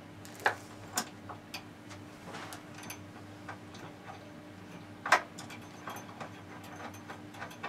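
Irregular light metallic clicks and taps of a nut being fitted and snugged onto a bracket bolt under a table saw's top, with sharper knocks about half a second and a second in and the loudest one about five seconds in. A faint steady hum runs underneath.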